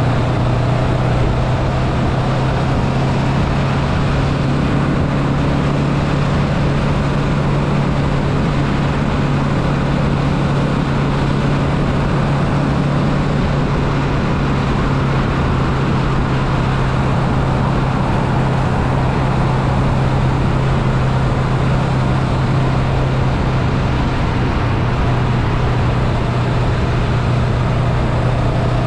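Honda Rebel 500's parallel-twin engine running at a steady cruise in sixth gear, a constant low drone, under the steady rush of wind past the moving motorcycle.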